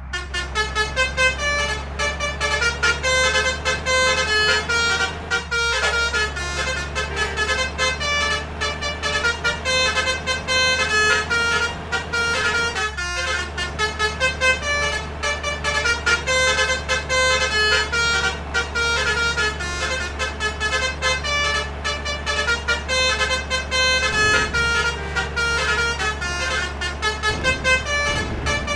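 Buses' Basuri multi-trumpet 'telolet' horns playing quick melodic runs of notes, several notes a second, over a steady low engine hum.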